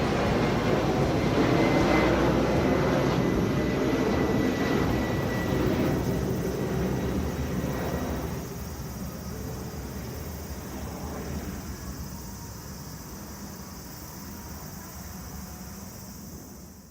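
An airliner's engines passing close by, loudest for the first half and then fading away steadily over the last several seconds.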